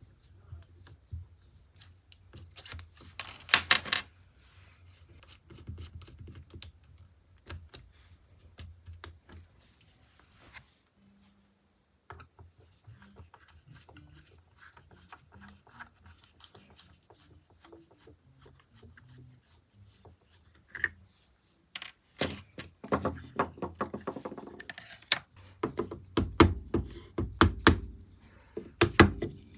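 Small clicks and scrapes of metal guitar hardware being worked on a headstock: a coin turning against a tuner bushing, then a screwdriver backing out the truss rod cover screws. There is a cluster of louder clicks about three to four seconds in and a run of clicks and light rattles through the last third.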